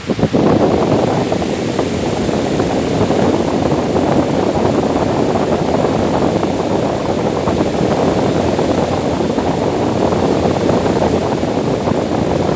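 Electric fan running loud and steady: a dense rush of moving air with a fine flutter, strongest in the low-middle range.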